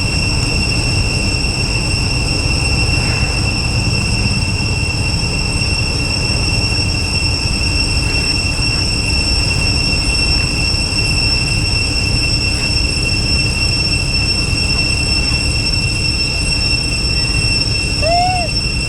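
A steady high-pitched drone over a low rumble, with a short high squeak near the end.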